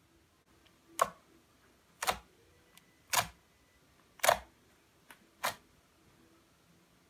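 Fingers poking into a mound of thick, chewy homemade chocolate slime, five short sharp pops about a second apart as each press sinks in.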